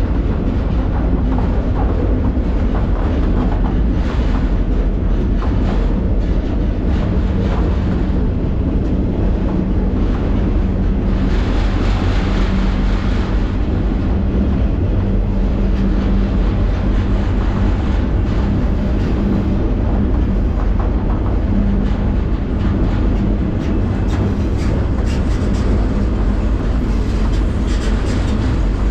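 Freight train rolling, heard from on board at the end of a car by the couplers: a loud, steady rumble with a constant low hum and scattered clanks and knocks. A louder hiss rises for a few seconds near the middle.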